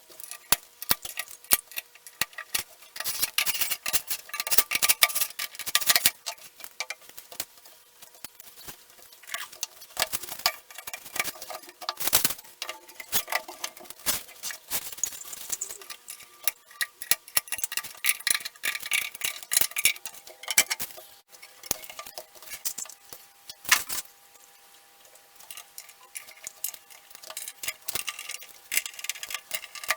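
Rapid, irregular light clicks, ticks and clinks of small hardware and hand tools while a wooden flat-pack desk is put together, with an occasional sharper knock.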